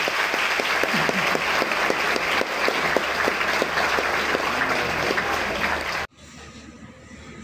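Audience applauding, a dense spatter of many hands clapping that cuts off abruptly about six seconds in.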